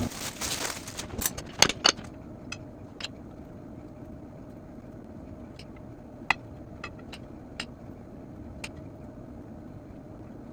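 Rustling for about a second, then a few scattered light taps and clicks from handling small objects, over a faint steady hum.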